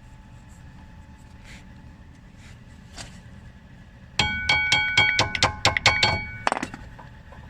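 A quick run of about a dozen sharp metallic clinks over two seconds, each ringing with a few clear tones, then one duller knock: metal tools or brake parts being handled or struck together.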